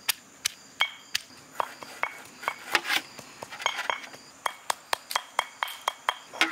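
Stone pestle pounding green chillies in a stone mortar: sharp, irregular knocks about three or four a second, some with a short ringing clink.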